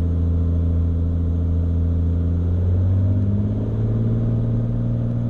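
Beechcraft Bonanza's piston engine and propeller running at power, recorded through the pilot's headset intercom. Its pitch rises about two and a half seconds in as power comes up for the takeoff run, then holds steady.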